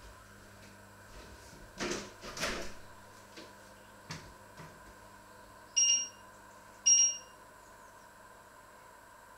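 Two short, high electronic beeps about a second apart from a kitchen appliance's beeper, the loudest sounds here. About two seconds in, two brief handling noises from pots or utensils.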